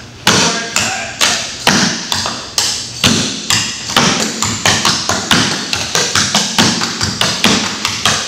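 Clogging shoes' taps striking a wooden floor in a rhythmic step pattern, danced a cappella with no music. The strikes come about twice a second at first, then faster and more tightly packed from about four seconds in.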